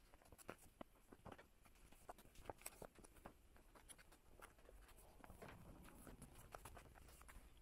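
Faint, irregular light clicks and rustles of photocards and plastic binder-page sleeves being handled, close to silence.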